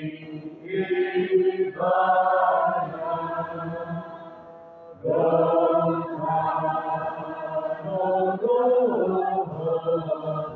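A group of mourners singing a slow hymn together, sustained sung lines with held notes. The singing drops off in the middle, then the next line comes in loudly about halfway through.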